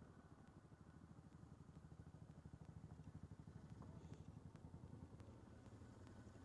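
ATV engine running at low trail speed: a faint, steady low putter of evenly spaced firing pulses.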